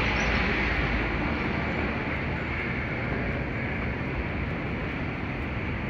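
Steady rumbling hum of a large airport terminal hall, easing slightly over the first couple of seconds.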